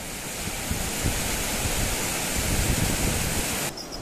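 Loud, steady rushing noise like a waterfall. It swells in and cuts off suddenly near the end.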